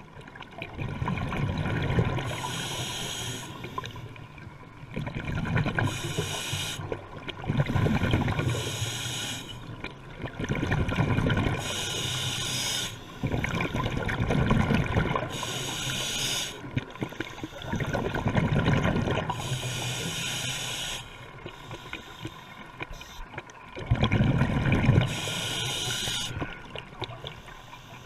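Scuba diver breathing through a regulator underwater: a hiss on each inhale and a rush of exhaled bubbles after it, repeating about every three seconds.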